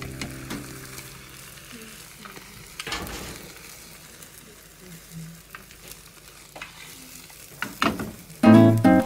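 Beaten egg sizzling in a rectangular tamagoyaki pan over a gas flame as the omelette is rolled with wooden chopsticks, with light taps and scrapes of the chopsticks on the pan and a louder scrape about three seconds in as the pan is lifted and tilted. Acoustic guitar music comes in near the end.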